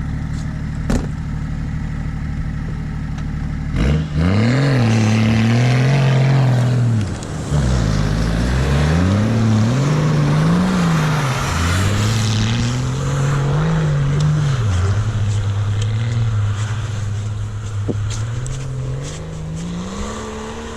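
An off-road 4x4 engine idles, then about four seconds in it is revved hard, its pitch rising and falling again and again, as it pulls a stuck vehicle on a kinetic recovery rope.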